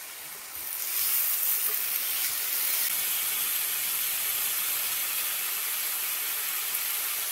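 Raw ground-beef patties sizzling in hot oil on a preheated ridged griddle pan, just laid down to cook. The sizzle builds over the first second as more patties go on, then holds steady.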